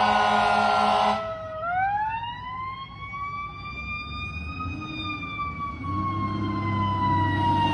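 Fire truck responding with its siren on. A loud horn blast cuts off about a second in, then the siren winds up into one wail that peaks around four to five seconds in and slowly falls. A low engine rumble grows near the end.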